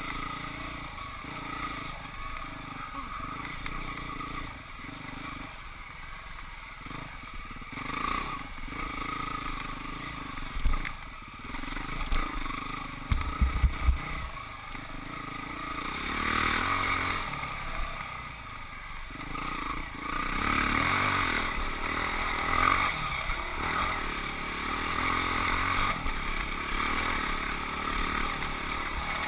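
Husqvarna 449 dirt bike's single-cylinder four-stroke engine running under load on a trail ride, rising and falling with the throttle. A few low thumps come about a third of the way in, and the engine is louder in the second half.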